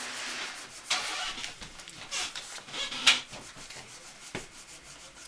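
Loose wooden chair being rocked back and forth by hand: wood rubbing and scraping at its loose joints in a few bursts, with a sharp click near the end. The joints are loose enough to need full tightening.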